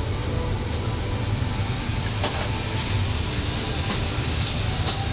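Steady low hum and rushing air of an Airbus A330's cabin ventilation, with a few light clicks and knocks about two seconds in and near the end.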